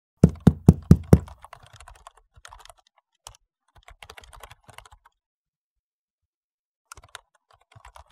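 Five quick, sharp knocks on a door, followed by faint scattered clicks and a few more near the end.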